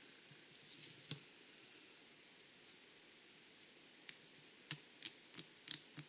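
Wooden toothpick tip picking inside an iPhone 5S charging port, ticking against the port as it digs out grime. A couple of faint clicks come about a second in, then a quick run of sharp little clicks, about three a second, over the last two seconds.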